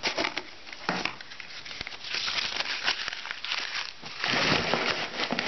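Kraft paper crumpling and rustling as it is balled up and stuffed into the gaps of a cardboard mailing box, with a few light knocks. The rustling is loudest about two seconds in and again past the four-second mark.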